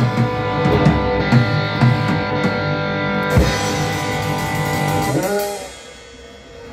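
Live rock band playing the closing bars of a song on electric guitar and drum kit, with a heavy hit about three and a half seconds in and a held final chord that stops about five and a half seconds in.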